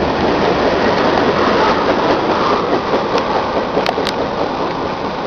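Freight train cars (covered hoppers, boxcars and a tank car) rolling past: a steady rumble and rush of steel wheels on the rails, with a few sharp clicks about three to four seconds in.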